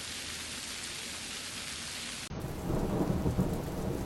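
Heavy rain falling as a steady hiss. About two seconds in it cuts abruptly to a louder, deeper rumble of storm noise.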